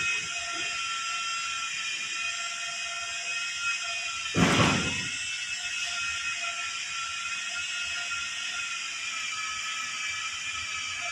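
A steady high-pitched drone of several held tones, slightly wavering. About four and a half seconds in there is a brief loud thump-like noise burst.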